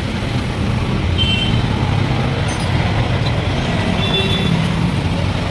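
Steady rumble of road traffic from passing vehicles, with a few short high tones about a second in and again around four seconds in.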